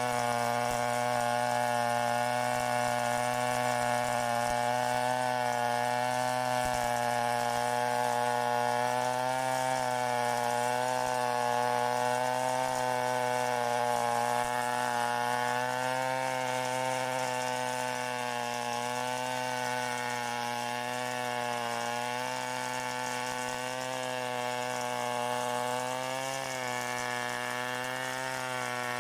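Stihl 070 two-stroke chainsaw running under load as it rips through a java plum log to mill boards; the engine note holds steady with a slight waver in pitch.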